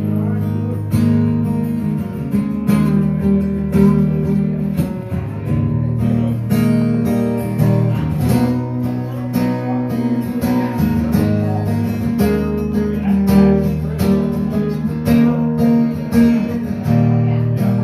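Acoustic-electric guitar strummed in a steady rhythm through a chord progression: the instrumental opening of a song, before any singing.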